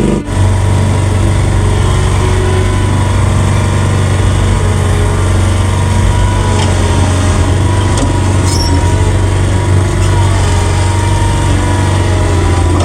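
An engine running steadily at a constant speed, with an even low hum that does not change.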